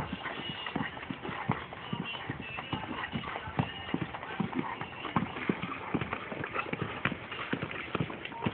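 Hoofbeats of a ridden dapple-grey horse stepping high in a collected gait on packed dirt: a run of dull knocks, several a second, in an uneven rhythm.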